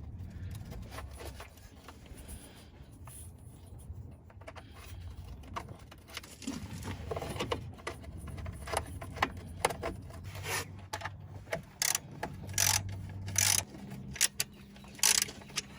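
Hand work refitting a radiator mount bracket in a car's engine bay: parts rubbing and scraping, with scattered sharp clicks and knocks, the loudest several in the last few seconds.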